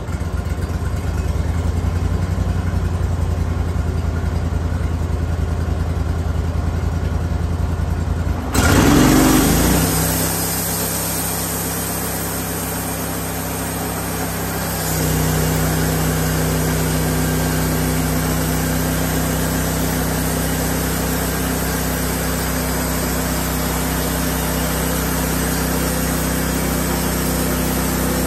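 Band sawmill running steadily, its motor drone changing about 8 seconds in with a sudden louder rush and a brief pitch sweep, then settling into a new steady hum that steps up again with added tones about 15 seconds in.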